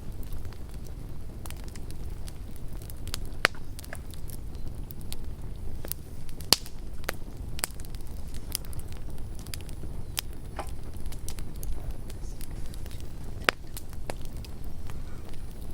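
Wood campfire crackling and popping over a steady low rumble of the flames, with irregular sharp snaps; the loudest come about three and a half, six and a half and thirteen and a half seconds in.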